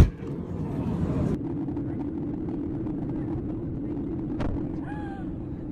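Airliner cabin noise from a window seat: a steady low rumble of jet engines and airflow, with a single short click about four and a half seconds in.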